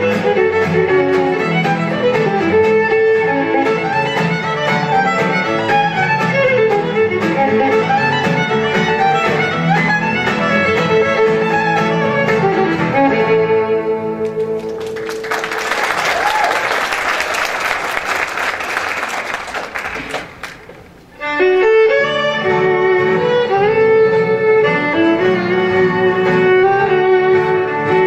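Fiddle played with acoustic guitar backing. About halfway through the tune ends and the audience applauds for about six seconds, the applause fading out, before the fiddle and guitars start the next tune.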